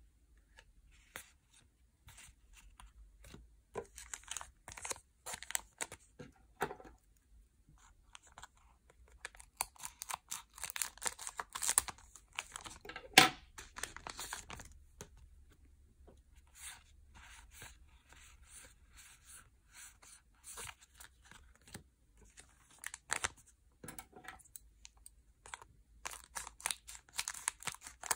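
Yu-Gi-Oh! booster packs being torn open and handled: foil wrappers tearing and crinkling, with cards tapping and sliding, in irregular short bursts and one sharp click about thirteen seconds in.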